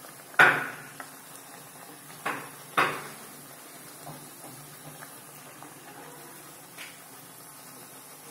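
A steel ladle clanks sharply against the metal kadai three times in the first three seconds, the first the loudest, with a softer knock near seven seconds, over the faint sizzle of oil as a puri deep-fries.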